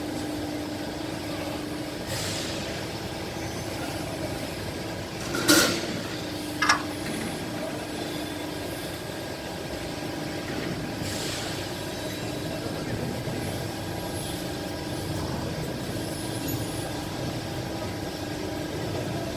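A hydraulic guillotine shear's power unit hums steadily with a held tone. A loud metallic clunk comes about five and a half seconds in, a shorter ringing clank follows a second later, and there are two brief hisses.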